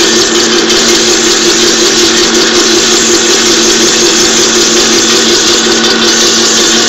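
High-speed candy packing machine running steadily: a loud, even mechanical whir with a steady low hum under it.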